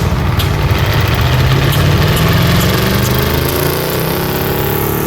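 Large 1967 Versatile four-wheel-drive tractor engine running steadily, its note rising over the last couple of seconds.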